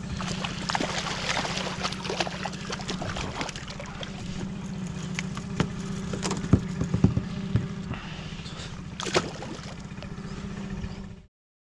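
A small fishing boat's motor running steadily with a low hum, while a hooked fish splashes at the surface beside the boat. The sound cuts off suddenly near the end.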